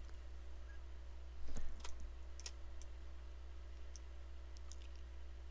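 Faint, scattered computer mouse and keyboard clicks, about half a dozen, with a brief louder bump about one and a half seconds in, over a steady low hum.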